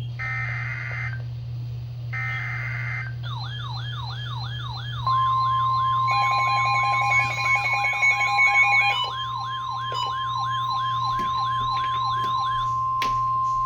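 Emergency Alert System alert on weather radio: two raspy digital header bursts. Then a wailing alert tone cycles up and down about two and a half times a second, with the steady single-pitch NOAA Weather Radio warning alarm tone held under it for about nine seconds. A pulsing beep sounds briefly in the middle.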